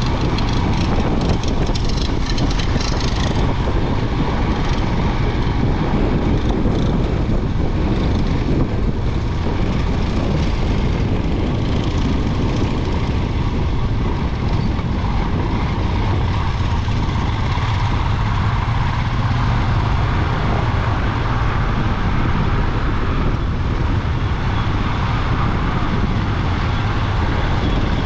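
Royal Enfield Himalayan 411's single-cylinder engine running under way on a rough off-road track, under a steady rush of noise, with a clatter of fine clicks in the first three seconds or so.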